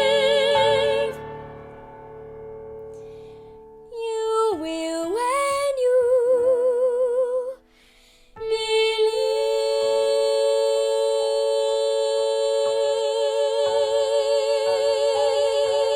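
Two female voices singing with piano accompaniment: a held note with vibrato ends about a second in and the piano carries on quietly, then a sung phrase with sliding pitch, a brief break, and from about eight seconds a long final note held in two-part harmony with vibrato.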